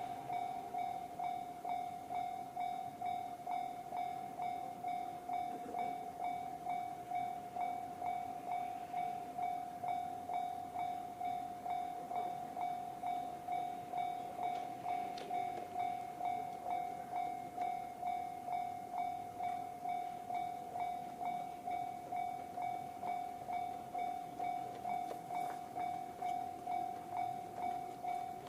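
Japanese railway level-crossing alarm, the JR standard electronic bell sound, ringing at an even, steady beat.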